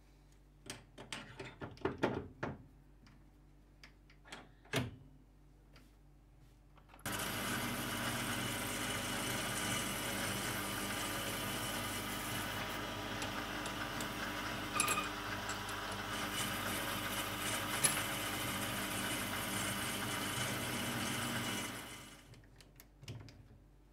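Clicks and knocks of a mini lathe's three-jaw chuck being turned by hand and tightened with its chuck key. About seven seconds in, the lathe motor starts suddenly and runs steadily with the chuck spinning, a drill chuck in the tailstock up at the workpiece. It winds down over about a second near the end.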